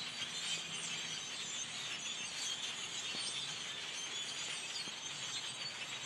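A large flock of blackbirds calling all at once: a dense, steady chatter of many overlapping high chirps and squeaks.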